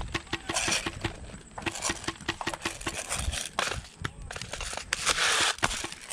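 Rustling, brushing and footstep noise from a person moving through dry grass with gear and a rifle, with two short runs of rapid, even ticks, about ten a second, in the first half.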